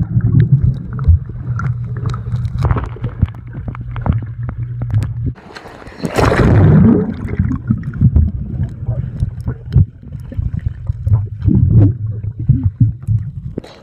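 Muffled sloshing and gurgling of swimming-pool water against a phone's microphone, held at and under the surface while swimming, with a louder splash about six seconds in.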